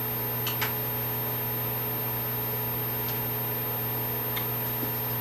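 Steady low hum of room noise, with a few faint brief ticks.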